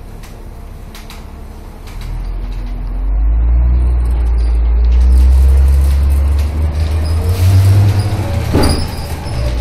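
Van Hool AG280 articulated bus's diesel engine, heard from inside the trailer: a quiet idle, then about two seconds in a loud low rumble as the bus pulls away, rising in pitch. A short sharp knock comes near the end.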